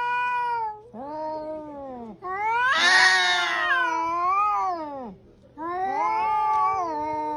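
Domestic cat yowling in a run of long drawn-out meows, each rising and then falling in pitch. The call in the middle is the longest and loudest.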